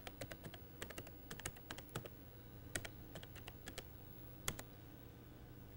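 Typing on a computer keyboard: an uneven run of keystrokes as a web address is entered, ending with one louder keystroke about four and a half seconds in. A faint steady hum lies underneath.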